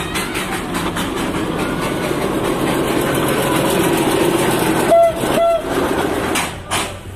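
Darjeeling Himalayan Railway narrow-gauge diesel locomotive running past close by, with two short horn toots about five seconds in.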